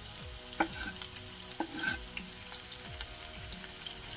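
Chopped onion sizzling and crackling in hot sunflower oil in a frying pan. About half a second and a second and a half in there are sharp knocks from a knife scraping the last onion pieces off a wooden cutting board.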